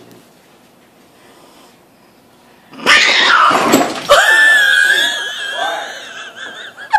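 A cat, startled by a stuffed toy animal, bursts into a loud, noisy yowl about three seconds in, with a sharp knock about a second later, then a long wavering cry that fades near the end.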